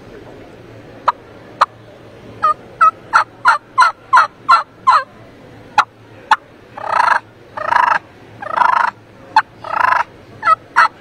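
Turkey hunter's mouth (diaphragm) call imitating a wild turkey. Two sharp clucks come about a second in, then a quick run of about eight falling yelps, two more clucks, four longer rougher notes, and another run of yelps near the end.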